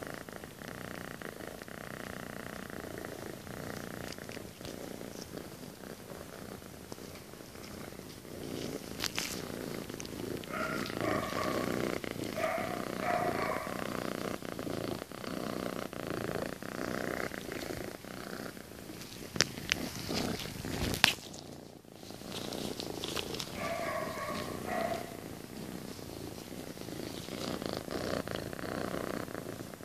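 Black-and-white cat purring steadily up close while its head is stroked. A few sharp clicks come about two-thirds of the way through.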